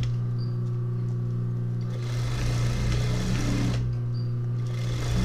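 Sewing machine stitching through heavy denim in back-and-forth darning runs over a torn seam, with a steady motor hum underneath; the stitching eases off briefly near the end and then picks up again.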